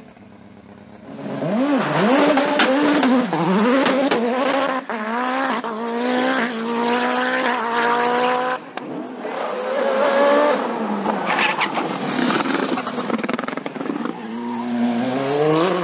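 Sport-prototype hillclimb race car engine at full throttle. It revs in short rises and falls at first, then climbs in repeated rising sweeps, each dropping back at an upshift.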